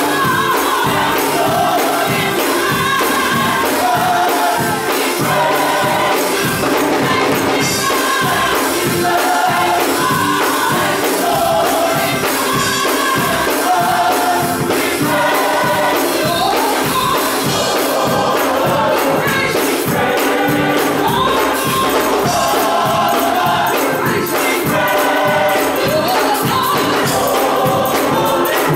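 Gospel choir singing in harmony with band accompaniment, a tambourine shaking along to the beat.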